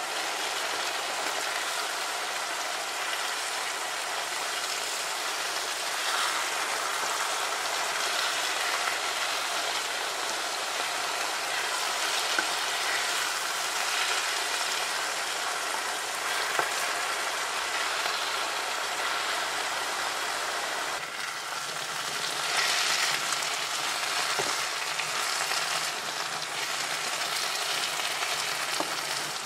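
Boiled spinach and green beans sizzling steadily in hot oil in a frying pan, stirred with a wooden spatula, as the water from the boiled greens cooks off.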